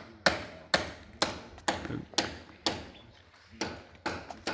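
Hammer driving a nail: a steady run of sharp blows, about two a second, with a brief pause about three seconds in.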